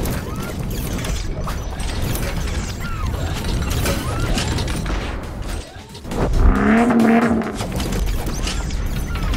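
Sound effects for an animated intro: a dense run of mechanical clicks, ratcheting and clattering metal parts, with a louder pitched swell about six seconds in.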